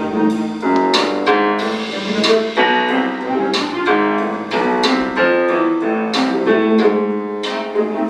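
Piano music: a melody of struck notes, several a second, over a steady low accompaniment.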